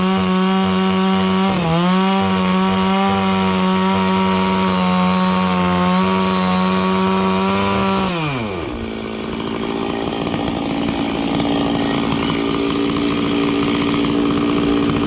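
Stihl 660 two-stroke chainsaw with a 36-inch bar running at full throttle, ripping lengthwise along a dry larch log, its revs dipping briefly under load about a second and a half in. About eight and a half seconds in the throttle is released and the engine drops to a steady idle.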